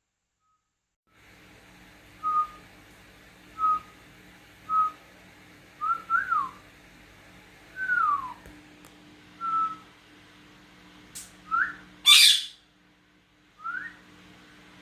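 A string of short whistled notes, a few held level and others gliding down or up, exchanged with a pet parrot. About twelve seconds in, the parrot gives one loud, harsh squawk.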